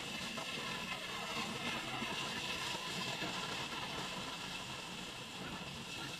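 Bandsaw running with its blade cutting along a curve through a thick wooden plank: a steady machine drone with the hiss of the cut.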